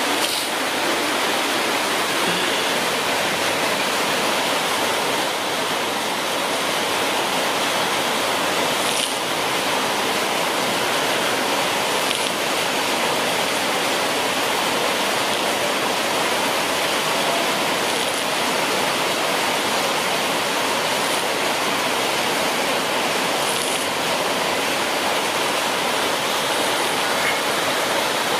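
Steady, even hiss of rushing noise, like running water or static, with a few faint high ticks.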